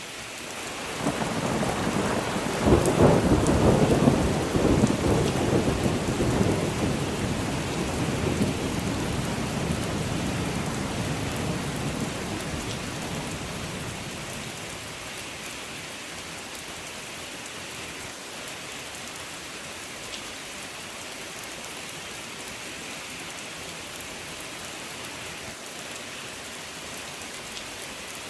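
Steady rain falling, with a long peal of thunder that rolls in about a second in, peaks a few seconds later and rumbles away over about ten seconds, leaving the rain alone.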